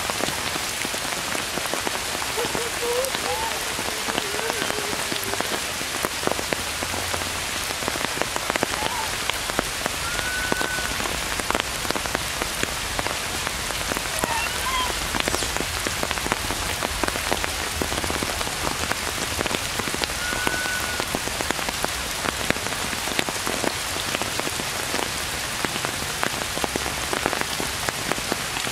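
Steady rain falling, with a constant hiss and many separate drops ticking close by. A few faint short whistled calls sound through it.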